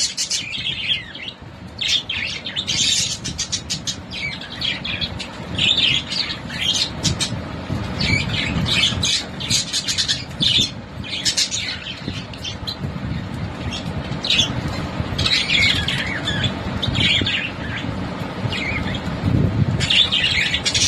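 Pet parrots chirping and squawking in quick, overlapping bursts, with a low rumble underneath.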